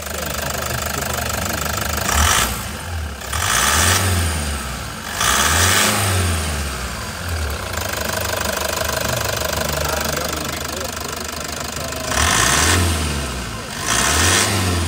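Toyota Hiace 3.0-litre four-cylinder diesel engine idling and revved in short throttle blips, each rising and falling back to idle: three in the first six seconds, then a steady idle, then two more near the end.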